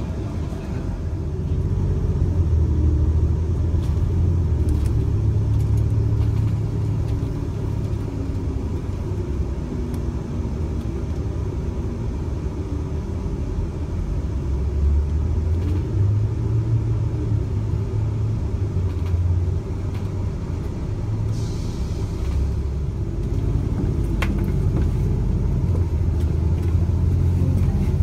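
Low rumble of a moving vehicle's engine and tyres heard from inside the cabin, its pitch rising and falling with speed. Late on there is a short hiss.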